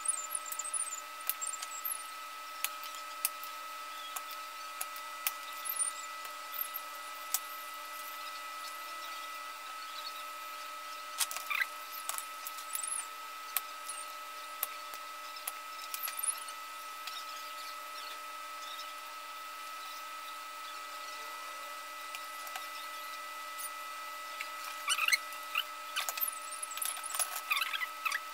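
Scattered light clicks and knocks of an inverter welder's circuit board and parts being handled and fitted, more of them toward the end, over a constant high-pitched whine.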